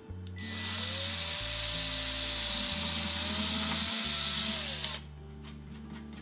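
Cordless drill with a small bit drilling into a hardwood plank. The motor spins up about half a second in, runs steadily for about four seconds and winds down to a stop near five seconds.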